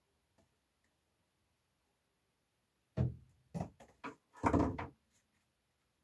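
Handling noises from hard parts being moved: a sharp knock about three seconds in, a few quick clicks, then a short rattling clatter.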